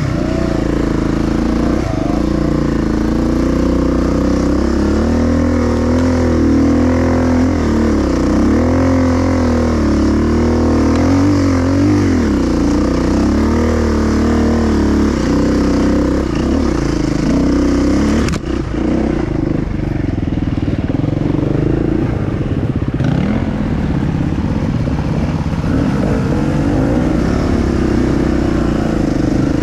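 Enduro motorcycle engine running under load, its revs rising and falling continually with the throttle, with a brief drop in loudness about eighteen seconds in.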